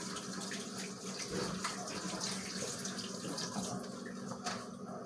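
Kitchen tap running into the sink: a steady rush of water.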